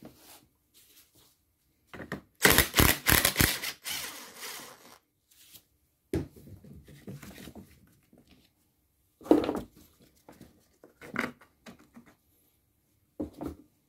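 Hard plastic parts of a small two-stroke leaf blower and hand tools being handled during disassembly: a burst of rapid clicking and rattling about two seconds in, then scattered knocks and clicks.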